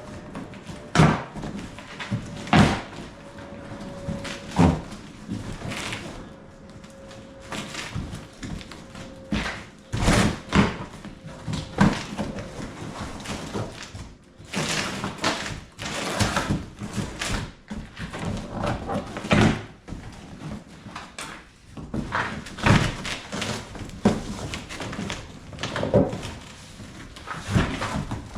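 A stapled cardboard shipping box being pulled open and its contents handled: repeated knocks and thumps with rustling cardboard in between.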